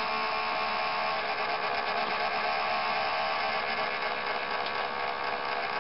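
Steady hiss with a faint, even hum underneath. No music or engine sound is heard yet.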